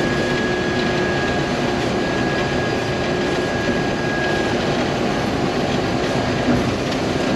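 Case IH 1480 combine running steadily while threshing a heavy feed of wheat, just after a plug, with a thin steady whine that fades out about halfway through.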